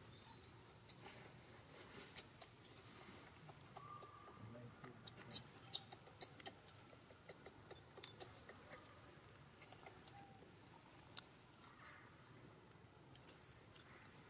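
Quiet crackling of dry leaf litter as the mother macaque and her newborn shift about: scattered sharp crackles, a few of them close together about five to six seconds in.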